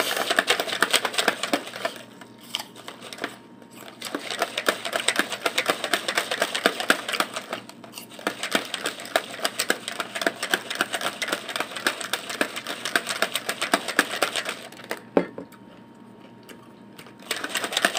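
Plastic protein shaker bottle of whey protein drink being shaken hard by hand, rattling rapidly in long bouts. It stops briefly about two seconds in and again near the end.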